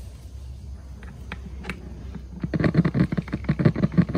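Woofer of an old speaker cabinet crackling and popping as a 1.5 V DC lead is rubbed on its terminals: a couple of single clicks, then a rapid run of crackling clicks from about two and a half seconds in. The crackle is the sign that the driver still works.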